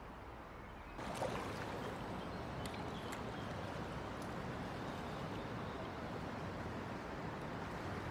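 Steady rush of flowing river water, getting a little louder about a second in with a brief splash-like sound, with a few faint ticks over it.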